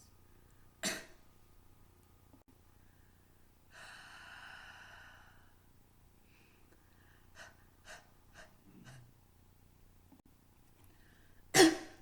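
A person draws a deep breath in for about two seconds, holds it, then gives one short, forceful cough near the end. This is a cough done the textbook way: a deep inspiration, a breath hold with the glottis closed, and a forceful expulsion using the abdominal muscles. There is also a brief sharp sound about a second in.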